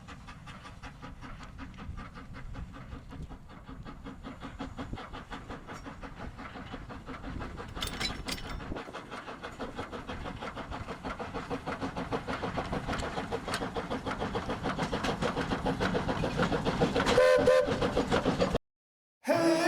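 Small narrow-gauge steam locomotive working, its rapid, even exhaust beats growing louder, with a short whistle blast near the end.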